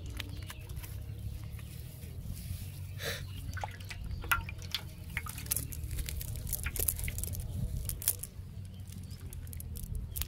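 Wet handling sounds from small fish being picked out of a wet fishing net and moving in a shallow metal pan of water: many scattered short clicks, drips and squishes over a low steady rumble.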